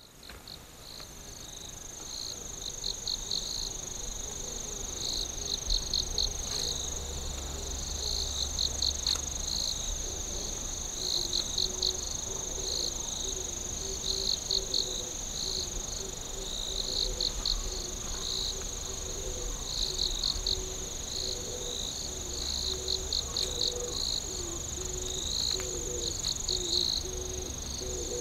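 Evening insect chorus: a steady high trill with groups of rapid chirps repeating every second or two, fading in at the start.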